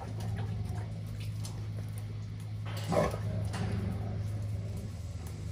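XL pit bull puppies whimpering, with one short, loud yelp about three seconds in, over a steady low hum.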